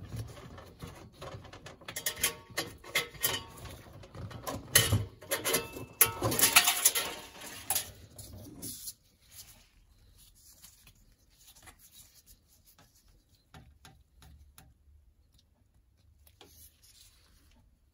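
Spring retaining wire being pulled out from behind a washing machine's rubber door seal with a gloved hand: a run of scraping, rubbing and clicking for about nine seconds, loudest around six seconds in. After that there are only a few faint ticks as the loose wire is handled.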